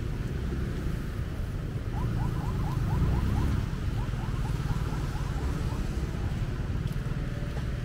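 Roadside street ambience: a steady low rumble of passing road traffic, swelling briefly a couple of seconds in. Over it comes a run of short rising chirps, about five a second, in two bursts with a short gap between them.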